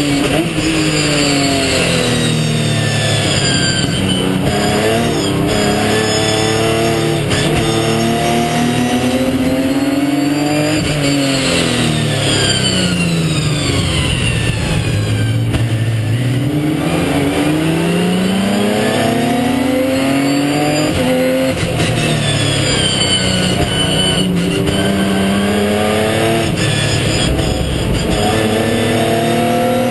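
Onboard sound of a Ginetta G50 race car's 3.5-litre V6 under racing load, its note climbing through the revs and dropping at each gear change. About halfway through the note falls for several seconds under braking, then climbs again.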